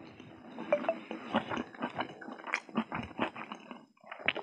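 Close-up chewing and wet mouth smacks from a person eating a mouthful of rice and noodles, coming as quick, irregular clicks with a short pause near the end.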